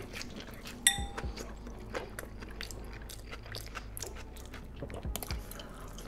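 Close-up chewing and crunching of a Hot Cheetos-crusted fried chicken sandwich dripping with cheese sauce, with one sharper bite about a second in.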